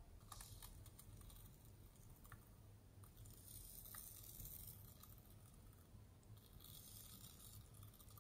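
Faint hiss of an aerosol can spraying a thin line of foam onto slime, in three spurts: near the start, from about three to five seconds in, and again around six to seven and a half seconds in, with a few soft clicks between.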